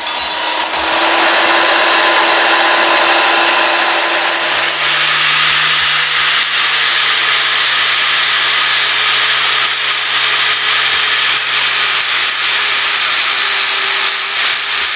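A power tool running steadily and loudly as it cuts 16-gauge sheet steel.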